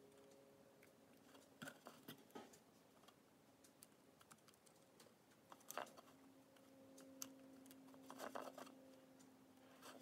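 Near silence with scattered faint small clicks and taps of fingers handling a wooden disc and glued toothpicks around a plastic pill container, a couple slightly stronger about six and eight seconds in. A faint steady low hum runs underneath.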